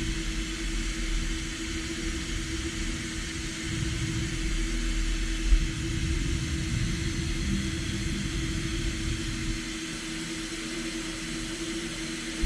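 DMG MORI M1 CNC vertical mill cutting a steel part: a steady machine tone over rumble and hiss, with a brief knock about halfway through.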